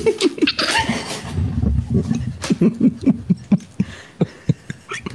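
A person laughing without words: a run of short, quick pulses of breathy laughter through the middle, then trailing off.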